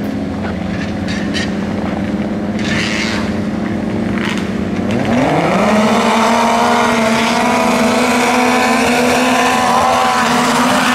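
A pack of racing snowmobiles idling together at the start line, then launching at full throttle about five seconds in. The engine pitch climbs quickly and holds high as they pull up the hill.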